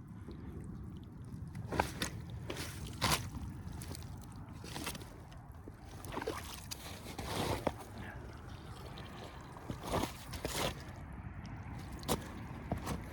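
Muck Arctic rubber boots squelching and sucking in wet peat mud, an irregular series of short wet squishes as the feet sink and pull out.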